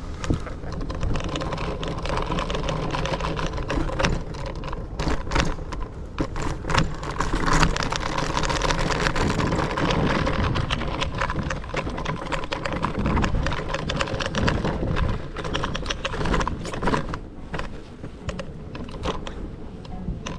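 Scooter rolling along, its steady running noise broken by a dense run of sharp clicks and rattles.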